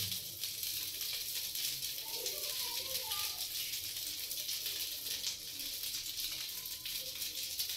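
A chana dal batter crepe sizzling in a hot non-stick frying pan as it cooks: a steady, even hiss.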